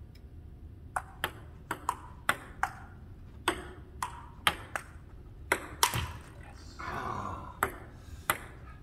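Table tennis rally: a celluloid ball clicking sharply off paddles and table, about a dozen quick hits in uneven pairs, with a pause of under two seconds near the end.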